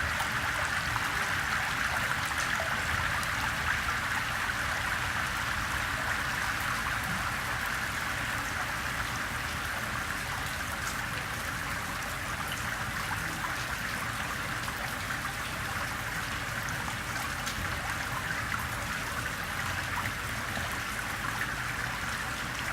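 Rainwater running and trickling off a pebbled street in gentle rain: a steady rush of water with scattered drop ticks.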